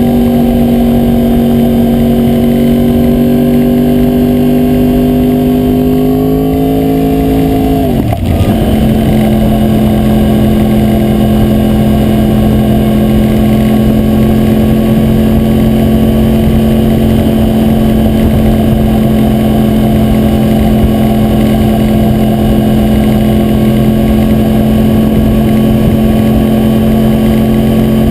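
A 2009 Yamaha R1's crossplane inline-four running at a steady cruising speed, heard through a GoPro Hero2 mounted on the bike, with the camera rattling on its adhesive mount. About eight seconds in, the engine note dips sharply for a moment, as in a gear change, then settles a little lower and holds steady.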